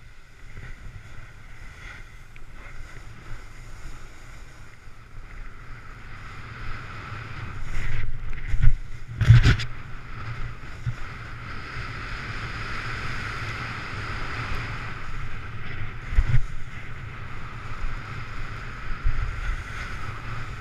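Wind buffeting the microphone over the hiss of a snowboard sliding and scraping on snow. A loud thump comes about nine seconds in and a smaller one about sixteen seconds in.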